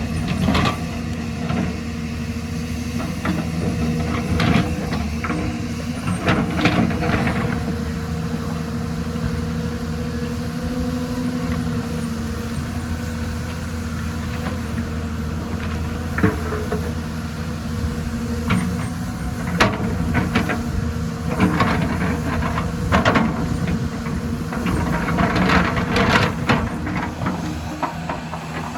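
Excavator's diesel engine running steadily under working load, with irregular sharp knocks and scrapes, clustered in a few bunches.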